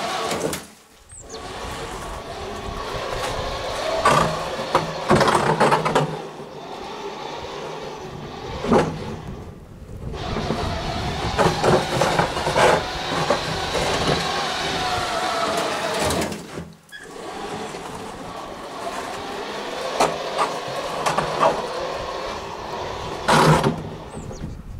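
Homemade self-propelled garden wheelbarrow with a front snow blade clearing a path: the blade scrapes and crunches through snow over paving, with scrapes and knocks, while the cart's geared electric drive runs. The noise falls away briefly a few times.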